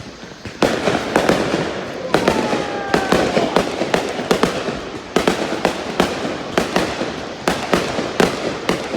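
Fireworks display going off: a dense run of sharp bangs and crackle that starts suddenly about half a second in, with a falling whistle near the middle.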